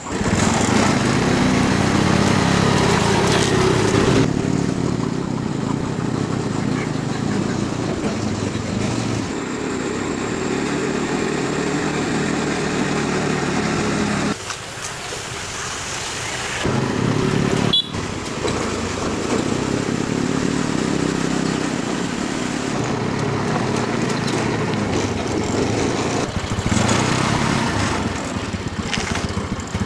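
Motorbike engine running steadily, easing off briefly about halfway through, with one sharp click soon after.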